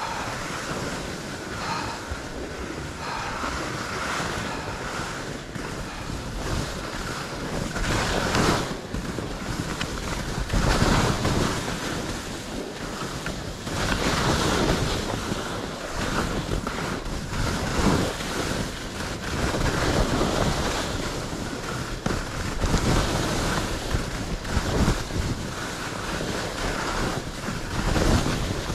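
Skis scraping and swishing over packed, bumpy snow, surging louder every couple of seconds with each turn, with wind rushing over the microphone.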